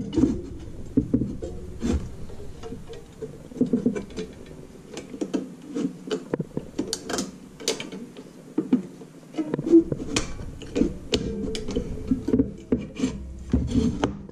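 Nichrome wire being wound onto the metal cutter grid of an icemaker by hand, scraping and clicking irregularly against the grid's frame, with the grid knocking on the wooden workbench.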